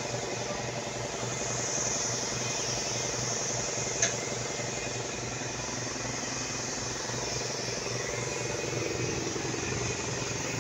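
Gravity-feed air spray gun hissing steadily as it sprays paint, over a steady low machine hum; a single sharp click about four seconds in.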